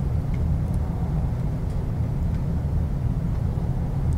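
A steady low rumble of background noise, with a few faint small clicks from hemostats working a thin steel cable through a crimp sleeve.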